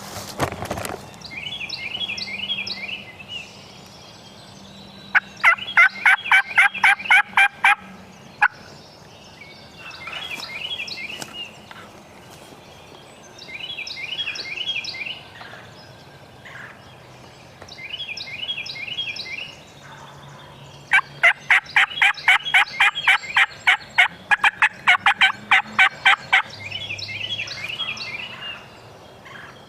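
Turkey yelping: two long runs of rapid, evenly spaced yelps, the second longer, about five seconds in and again from about twenty-one seconds. Between them a songbird sings a short high phrase again and again.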